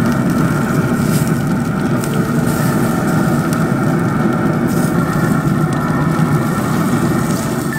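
Pellet grill's draft fan running: a steady low rumble with a faint steady whine above it.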